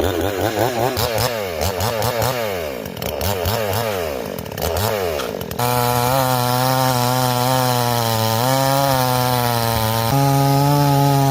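Two-stroke chainsaw engine revved in quick repeated blips, its pitch swinging up and down, then held at a steady high speed from about halfway through, with a brief dip and a slight rise near the end.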